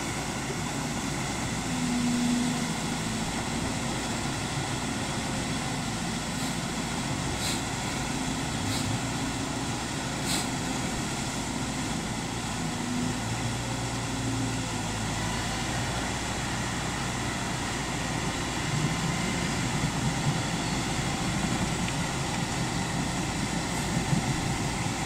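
Kobelco excavator's diesel engine running steadily over a constant rushing noise, with a few faint clicks about halfway through.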